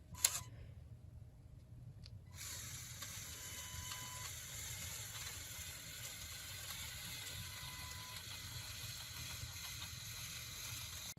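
A sharp click, then from about two seconds in the steady whirr of the Lego Technic Volvo A60H's electric motors and plastic gear train driving the model up a slope.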